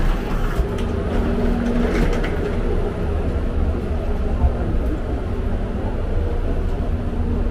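Steady low rumble inside an airport jet bridge, with suitcase wheels rolling over the floor and the hum of machinery around the aircraft.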